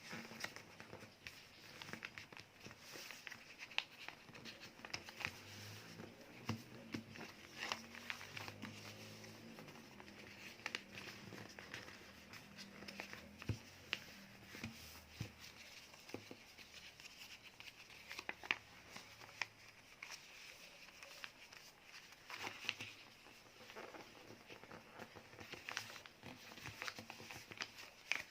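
Paper being folded and creased by hand: faint rustling and crinkling with many small irregular taps and clicks.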